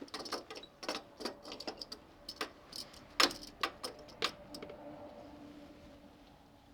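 Irregular small clicks and light taps of tools and wires being handled, about a dozen in the first four and a half seconds, then only faint background noise.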